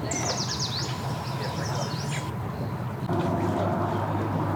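A bird sings a quick run of high, falling notes in the first two seconds over a steady low engine rumble. About three seconds in, a louder steady engine hum takes over.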